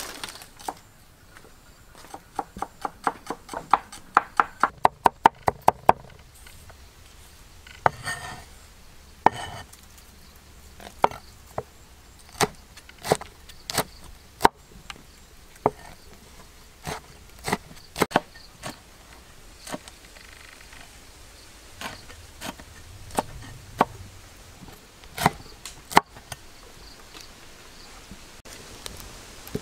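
Chopping with a blade on a wooden board: a quick, even run of about sixteen chops, then slower single chops about once a second.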